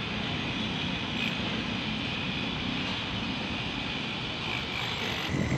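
Hot air blower running steadily, its fan blowing with an even rushing hiss, while self-adhesive bituminous membrane is being fixed; the hiss cuts off suddenly near the end.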